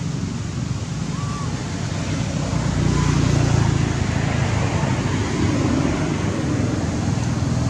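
A motor engine running steadily nearby, a low rumble that swells a little about three seconds in, with a couple of faint short chirps over it.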